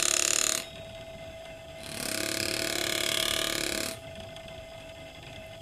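A card held against the teeth of a spinning 60-tooth sprocket on a U-joint drive shaft demonstration rig buzzing at a steady, unchanging pitch: the drive shaft is turning at constant speed with no U-joint operating angle. The buzz stops just after the start and sounds again for about two seconds from about two seconds in, over the faint steady hum of the constant-speed electric motor.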